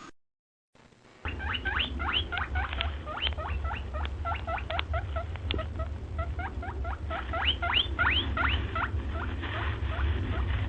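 A small animal squeaking: a rapid run of short, upward-sweeping chirps, several a second, starting about a second in, over a low steady hum.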